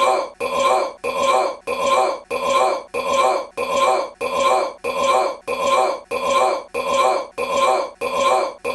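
A man's short belch, the same recording repeated as a loop about twice a second. Each belch starts suddenly and fades before the next.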